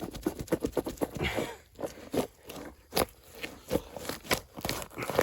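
Small hand shovel digging and prying in root-filled soil: irregular scrapes, crunches and sharp knocks, with the loudest knocks about three and four and a half seconds in.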